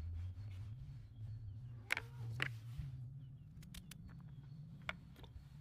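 Faint chirping of small birds over a low steady hum. A few sharp clicks come through, two louder ones about two seconds in and lighter ones near the end.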